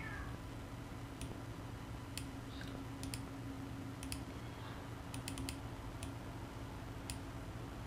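Faint, irregular clicks of a computer mouse and keyboard, about ten of them with a quick cluster a little past the middle, over a steady low hum.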